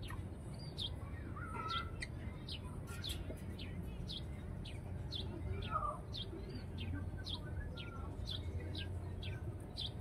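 Small birds chirping: short, high, downward-sliding chirps repeating about twice a second, over a steady low rumble.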